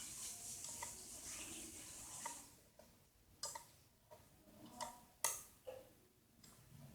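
A few faint, separate metallic clicks and knocks from a wrench tightening the bolts of a small tractor's clutch assembly.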